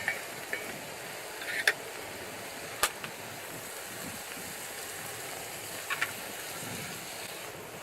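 Wood fire burning in a fire stand, giving a few short, sharp pops and crackles over a steady hiss.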